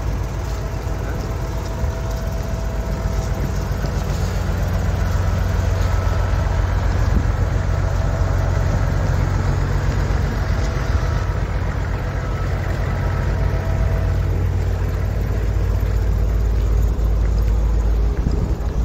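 Fire truck's engine running steadily with a deep rumble, growing louder in the last few seconds.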